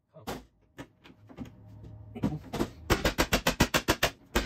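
Hammer blows on a hand impact screwdriver set in a rusty door-adjustment set screw, sharp metal-on-metal strikes. A few single taps come first, then a fast steady run of about six or seven a second in the second half. The screw is refusing to loosen.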